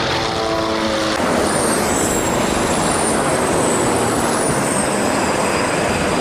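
Tanks on the move: loud, steady engine and track noise, with a faint high whine that glides down in pitch.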